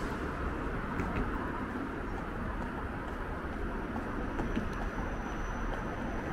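Steady city street ambience: a low hum of distant traffic, with a few faint ticks and a thin high whine that comes in about four seconds in.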